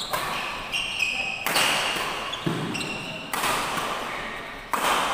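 Badminton rally: three sharp racket strikes on the shuttlecock, spaced a second and a half to two seconds apart, each ringing on in the hall's echo. Short high squeaks of shoes on the court come between the strikes.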